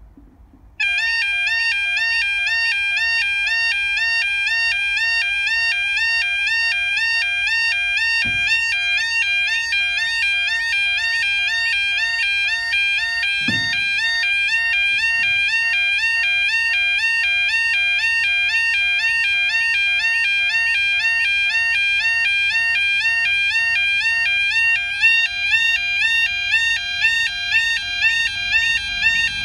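UK level crossing yodel alarm sounding: a loud, rapid warbling tone that starts about a second in, warning that a train is approaching and the barriers are coming down. Two dull knocks are heard partway through.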